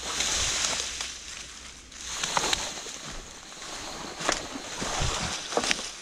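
Footsteps through dry leaves, grass and twigs, with rustling and the sharp crack of small twigs underfoot. The rustling comes in three swells.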